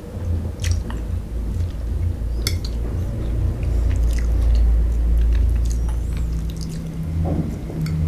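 Close-miked chewing of soft fried rice vermicelli: wet, squishy mouth sounds with occasional short smacks and clicks.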